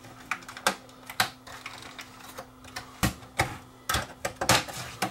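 Irregular clicking and knocking of plastic and sheet metal as an opened DVD player's chassis and front panel are handled and shifted on a workbench, with a cluster of heavier knocks from about three seconds in. A faint steady hum sits underneath.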